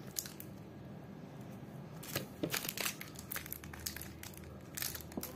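Thin plastic wrapper of a modelling-clay stick crinkling as it is handled and unwrapped, in irregular short crackles that grow busier about two seconds in and again near the end.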